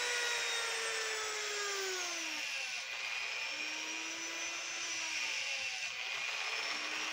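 Handheld rotary tool running at high speed, its bit grinding eye holes into a small mahogany carving. The motor's whine dips in pitch and recovers several times as the bit bears into the wood and eases off.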